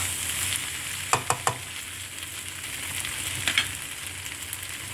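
Kuey teow noodles with vegetables and prawns sizzling in a hot pan as they are stir-fried, with a steady hiss. A spatula knocks against the pan a few times about a second in and once more at about three and a half seconds.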